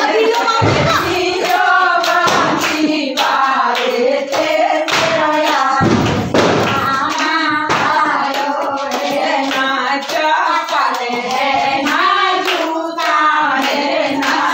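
Women singing together, with hands clapping along and a few low thuds.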